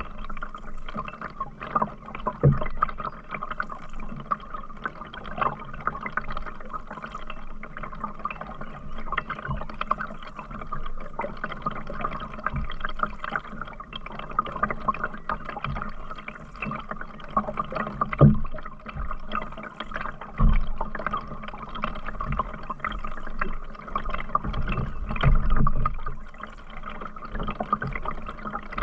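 Canoe being paddled: water running and dripping off the paddle and gurgling along the hull, with a few dull knocks now and then.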